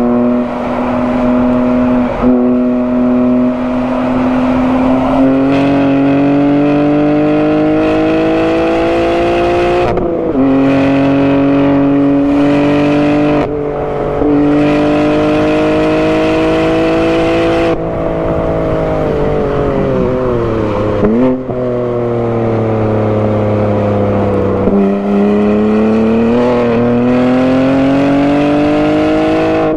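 BMW G80 M3's twin-turbo inline-six, with a non-resonated single midpipe, running hard on track: the engine note climbs through the revs, with short breaks at upshifts about ten and fourteen seconds in. It then falls away off the throttle, with a quick dip-and-rise around two-thirds of the way in, and climbs again after a downshift near the end.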